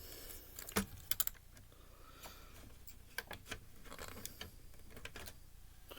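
Small screwdriver clicking and scraping against screws and metal parts while a Blu-ray player is taken apart: irregular sharp clicks, the loudest about a second in, with short scraping sounds between them.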